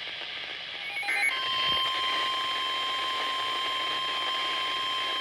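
Weather-radio emergency alert: a brief chatter of digital header tones about a second in, then the single steady warning alarm tone of a NOAA Weather Radio alert, announcing a new severe thunderstorm warning. Faint radio hiss lies underneath.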